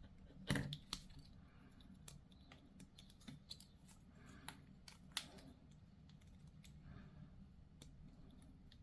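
Faint, sharp clicks and snaps of small plastic miniature parts being handled, cut and pressed together, the loudest about half a second and a second in, a few more around the middle.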